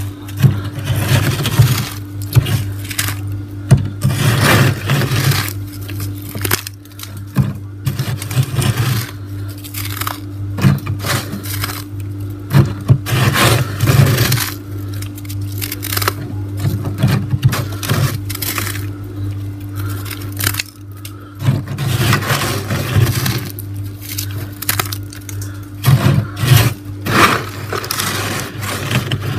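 Fingers scraping and crunching through thick freezer frost: a continual run of rough, crackling scrapes, some louder than others, over a steady low hum.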